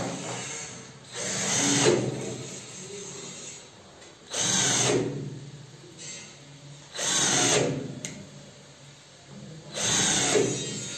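Cordless drill-driver driving screws in four short runs, about two to three seconds apart, fixing a hinge to a composite door leaf.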